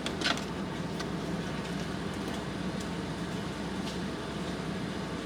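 Car engine idling steadily, heard from inside the cabin, with a brief knock just after the start.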